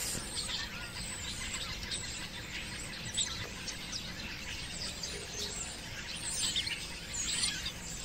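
A large flock of ground-feeding songbirds calling together: a constant, overlapping chatter of short chirps and whistles, some sliding up in pitch, over a steady background hiss.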